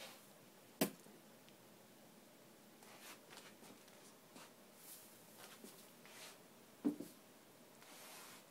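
Quiet room with two sharp knocks, about a second in and about seven seconds in, and faint rustling between them.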